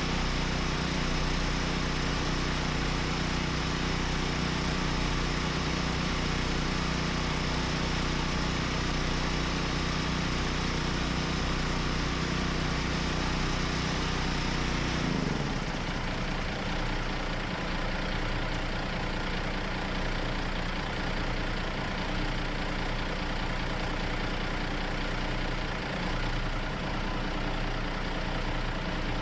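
An engine running steadily. About halfway through, its pitch drops and it settles into a lower, different steady running sound.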